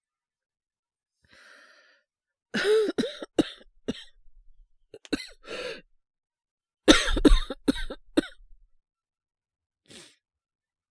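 A man coughing in fits, acted as someone sick with a cold and high fever. After a faint breath there is a run of four or five coughs, then a couple more in the middle, then a louder run of coughs about seven seconds in.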